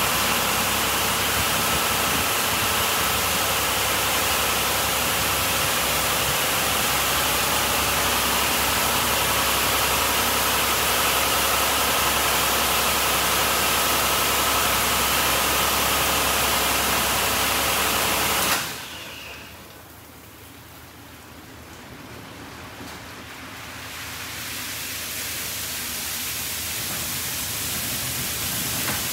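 Mark VII Merchandiser in-bay automatic car wash running a cycle: a loud, steady spray-and-machine noise that cuts off abruptly about two-thirds of the way in, followed by a softer hiss that slowly builds.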